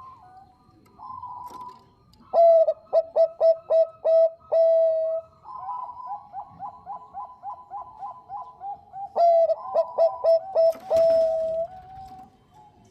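Zebra dove of the Bangkok singing type giving its staccato cooing song: two loud phrases of short, quick notes each ending in a longer held note, with a quieter run of rapid repeated coos between them. A brief knock sounds near the end of the second phrase.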